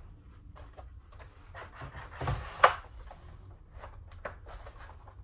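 Foam board wing panel handled and slid onto a carbon fibre spar rod, with scattered light scrapes and taps and one sharp click about two and a half seconds in.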